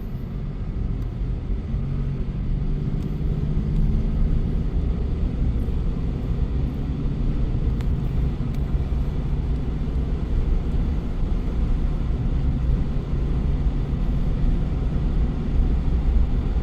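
Truck driving on the road: a steady low rumble of engine and road noise, with a faint engine hum underneath.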